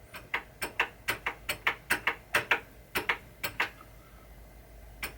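A rapid run of sharp mechanical clicks from a pinball machine, about five a second, stopping after roughly three and a half seconds, with a couple more clicks near the end.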